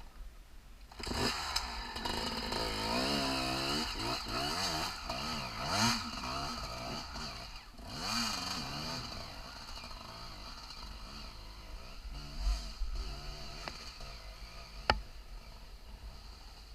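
Off-road motorcycle engine revving up and down, its pitch rising and falling repeatedly; it starts about a second in and fades after about nine seconds. A sharp click near the end.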